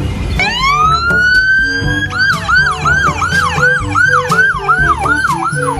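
Ambulance siren starting up with a long rising wail that levels off, then switching about two seconds in to a fast yelp of about three sweeps a second.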